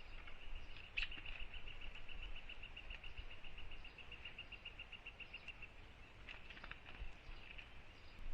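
An animal's rapid pulsed trill, about eight pulses a second, starting about a second in and fading after about five seconds, with a few faint clicks near the end.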